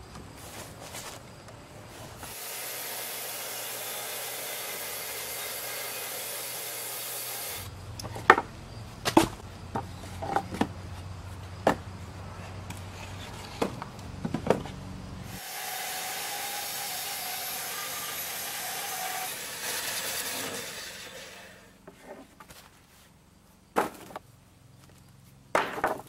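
Homemade wooden bandsaw mill cutting a log, with a steady hiss of the blade in the wood. Partway through, the cutting gives way to a low hum and a string of sharp knocks from sawn wooden boards and slabs clattering as they are tossed aside, and then the hiss of cutting returns. It stops a few seconds before the end, leaving a few knocks.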